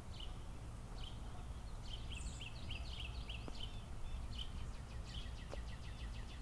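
Small birds chirping and trilling over a steady low background rumble, with a quick run of short chirps about two seconds in.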